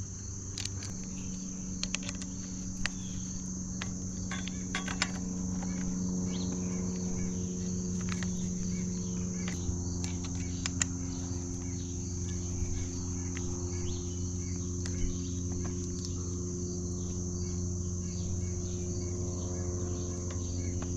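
Crickets chirping in a steady high-pitched trill. Underneath it run low steady droning tones that change pitch about a second in and again about ten seconds in, with a few faint clicks in the first few seconds.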